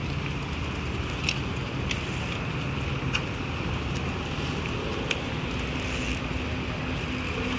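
Cars driving off a chain ferry's ramp onto the slipway, their engines making a steady low rumble. A few sharp clanks come through it now and then.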